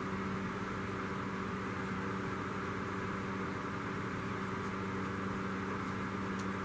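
Steady background hum with an even hiss: constant room noise, unchanging throughout.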